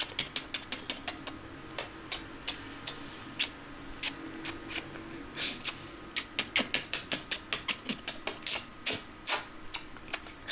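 A small dog licking a person's face close to the microphone: rapid wet licking and smacking clicks, several a second in irregular runs.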